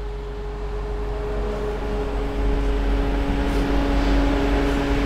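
Haulotte HS 15 E hybrid scissor lift running under power, a steady machine hum with an even whine, growing a little louder about two seconds in.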